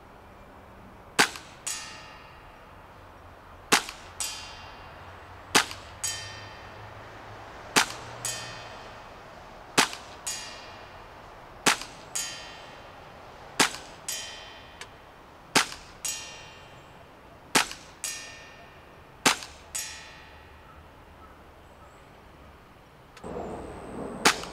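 Tokyo Marui Glock 19 gas blowback airsoft pistol fired slowly, about ten sharp shots some two seconds apart. Each shot is followed about half a second later by the BB striking a metal plate target, which rings. One more shot comes near the end.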